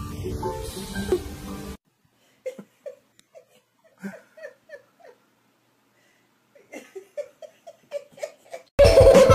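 A person laughing in short repeated bursts, in two spells, after a brief noisy sound at the start. Loud music starts near the end.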